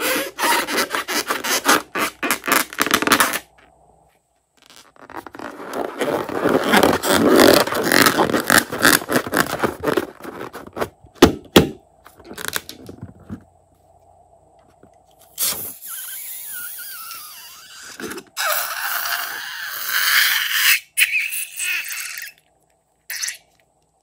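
Rubber squeaking and scraping as hands squeeze a liquid-filled balloon and empty it into a glass dish. The noise comes in separate stretches, with quieter gaps between them.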